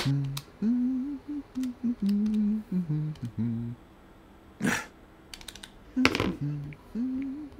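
A man humming a short wordless tune in held, stepping notes while pressing the plastic keys of a pocket calculator and tapping a phone. Light key clicks come through, with two louder knocks and rustles as the devices are handled, one near the middle and one about three-quarters in.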